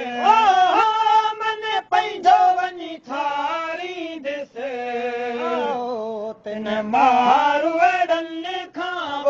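Sindhi waai folk song: a voice sings long, bending held notes, with short breaks between phrases.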